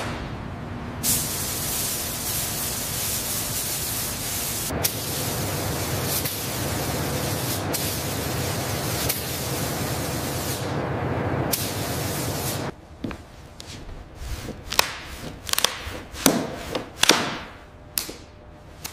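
Spray gun hissing as paint is sprayed in long passes, with a few short breaks. The spraying stops about two-thirds of the way through, and scattered knocks and clatters follow.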